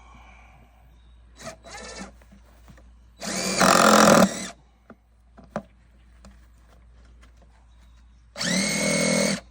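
DeWalt drill running in two bursts of about a second each, driving screws into wood, with the motor winding up to speed at the start of each run. Light knocks and clicks between the runs.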